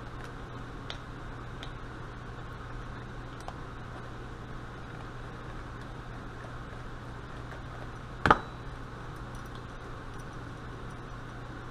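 Faint small clicks of a screwdriver turning screws into a mechanical fuel pump's cover, over a steady low hum. About eight seconds in comes one sharp, loud clack as the screwdriver is put down on the wooden workbench.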